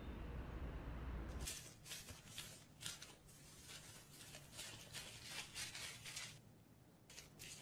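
Hairdressing scissors snipping through hair in quick repeated cuts, about two or three a second, with a short pause near the end. A low hum comes before the first cut, about a second and a half in.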